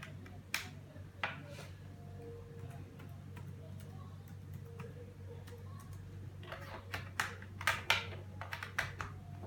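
Keys on a Redragon K300 mechanical keyboard with clicky blue switches being pressed: a few scattered clicks, then a quicker run of clicks from about six and a half to nine seconds in, over a low steady hum.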